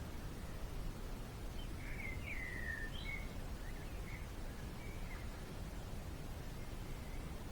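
A few small bird chirps, short sliding notes with a cluster about two to three seconds in, over steady low outdoor background noise.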